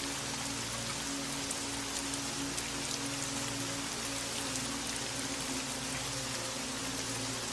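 Steady rain, an even hiss with individual drops ticking through it. Soft, low sustained music notes are held underneath and change every few seconds.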